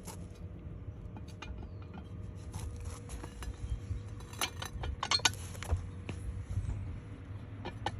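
Factory two-piece brake rotor on a Corvette C7 clinking and rattling: a scatter of light metallic clicks, with quicker runs a little past the middle and near the end. The rotor's parts are loose against each other.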